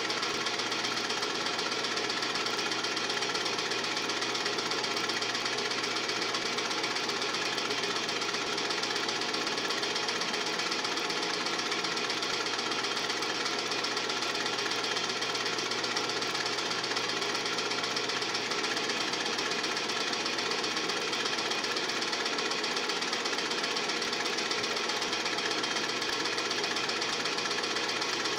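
Film projector running: a steady, even mechanical clatter that does not change.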